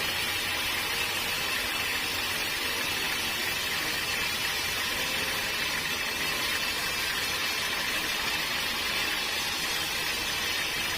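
Sawmill machinery running steadily: a constant mechanical drone with a hiss over it that does not change.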